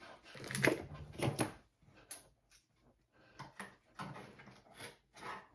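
Cardboard and plastic toy packaging being handled, with irregular rustles and scrapes in short clusters, as a boxed action figure is worked out of its box.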